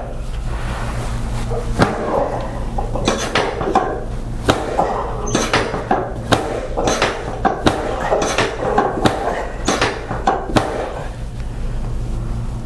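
Irregular sharp clicks and knocks from a chiropractic adjustment of the lower back, hands and treatment table working over the SI joints and sacrum, over a steady low hum.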